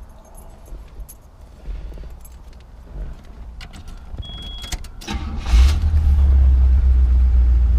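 Keys jingling and clicking at the ignition of a 1975 Buick LeSabre, with a brief high-pitched tone about four seconds in. About five seconds in the 350 V8 cranks and fires, then settles into a loud, steady idle through its added dual exhaust.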